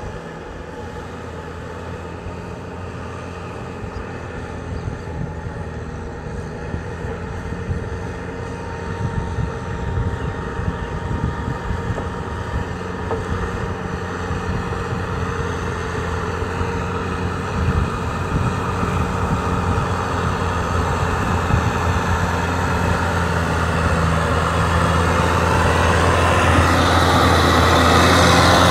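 Kubota M6040 SU tractor's four-cylinder diesel engine running steadily under load while it works a flooded rice paddy with a rear rotary tiller. It grows steadily louder as the tractor comes closer.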